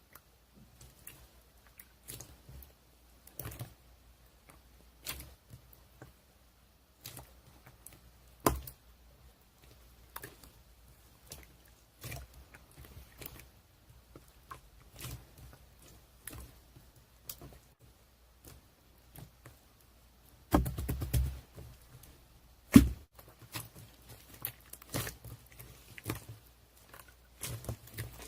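Scattered soft clicks, taps and knocks at irregular intervals, with a denser clatter about three-quarters of the way through and a single sharper knock just after it.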